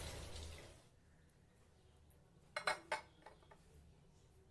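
Liquid pouring into a container tails off under a second in; about two seconds later come three light clinks of glassware or dishes being set down or handled.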